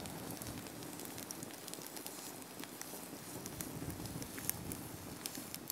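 Small campfire of freshly lit kindling sticks burning under cook pots. There is a steady hiss of flame with many scattered sharp crackles and pops.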